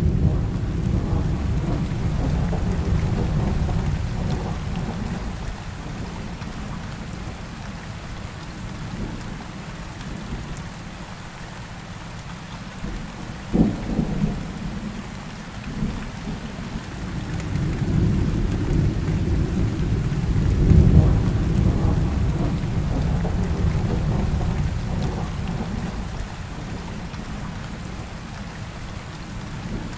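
Steady rain on a surface with rolling thunder: long low rumbles near the start and again in the second half, and a sharp thunder crack about halfway through.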